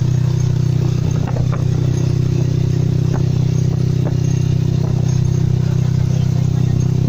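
Motorcycle engine of a Philippine tricycle running at a steady pace, heard from inside the passenger sidecar, with a few light rattles about one and a half, three and four seconds in.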